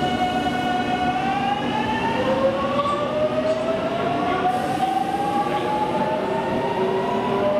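JR Kyushu 813 series six-car electric train pulling away from the platform, its inverter and traction motors whining. The whine climbs steadily in pitch from about a second in as the train accelerates.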